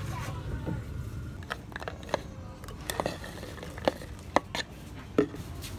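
Irregular sharp knocks and clinks of kitchen utensils at a clay mortar while red chilies are added for curry paste, about half a dozen in all, the loudest near the middle and end.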